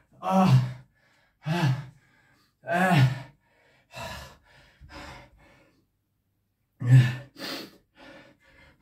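A man panting hard, with heavy voiced exhalations and sighs about every second or so, a brief pause, then more. He is catching his breath, exhausted after a high-rep set of barbell squats.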